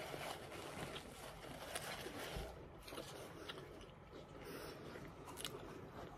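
A person chewing a mouthful of burger, faint, with scattered small clicks.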